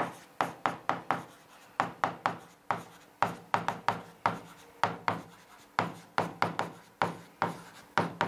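Pen writing on an interactive whiteboard's screen: a run of sharp, irregular taps with short scrapes between them, about three strokes a second.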